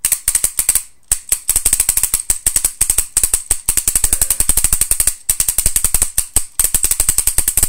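Spyder E99 paintball marker fired in fast strings of shots, about ten a second, with a few brief gaps, as the trigger is walked rapidly with the left hand.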